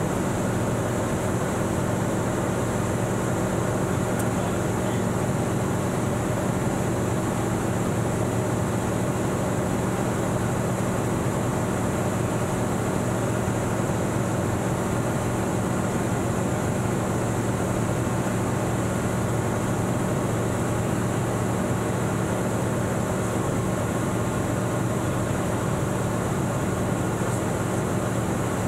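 Single-engine light aircraft's piston engine and propeller running steadily in flight, heard inside the cockpit as a constant drone.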